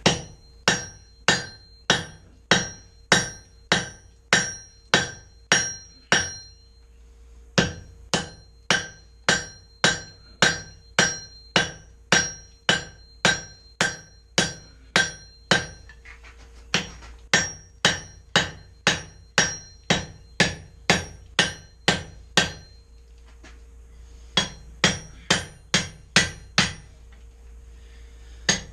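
Hand forging: a hammer striking 3/4-inch round steel bar on an anvil, about two blows a second in runs broken by short pauses, each blow ringing. The blows draw the bar down to a point for an axe eye drift.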